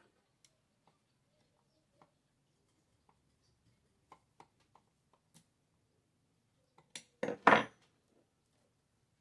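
Faint metal clicks from fitting a chainsaw bar and chain, then a short clatter of metal on wood about seven seconds in, as a bar wrench and bar nut are put down on the wooden table.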